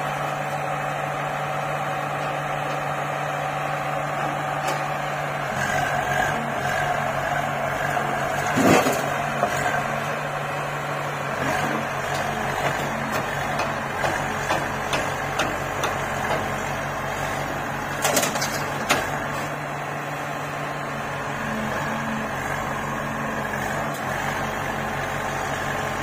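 Diesel engine of a backhoe loader running steadily under load while it digs soil and dumps it into a tractor trolley, with a tractor engine running alongside. Short knocks and clatters of the bucket, the loudest about nine seconds in and again about eighteen seconds in.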